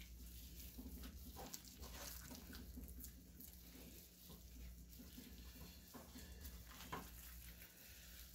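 Faint wet squishing and patting of gloved hands massaging mustard and dry rub into a raw beef brisket, over a low steady hum.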